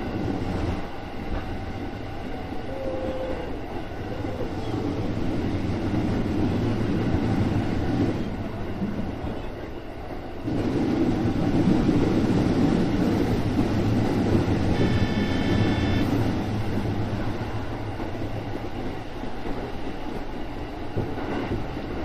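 JR West 205 series electric train running on the line, heard from inside the front car: a steady rumble of wheels and running gear that grows louder about halfway through. A brief high tone sounds about two-thirds of the way in.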